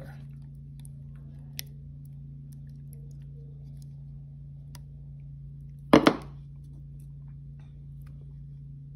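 A steady low hum with a few faint clicks, and a sharp double knock about six seconds in.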